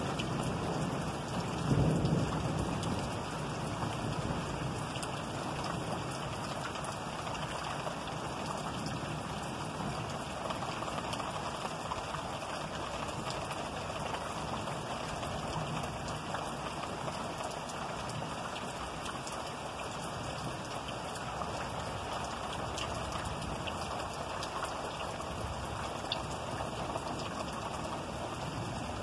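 Thunderstorm: rain falling steadily throughout, with a low rumble of thunder about two seconds in.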